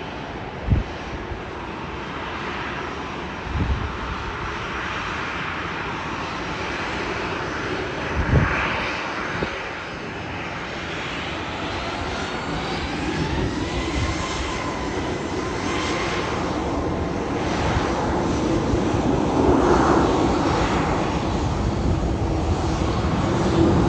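Airliner engines running and growing steadily louder as the aircraft approaches, with a thin whine that glides in pitch. A few brief thumps of wind on the microphone in the first ten seconds.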